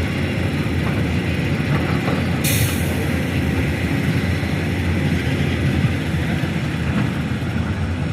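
Diesel engine of an excavator running steadily under load, a low rumble, with a brief hiss about two and a half seconds in.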